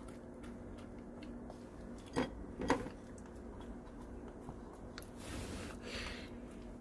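Small dog chewing and lapping up bits of cooked pork fed from a hand. A couple of sharper clicks come a little after two seconds, over a quiet steady hum.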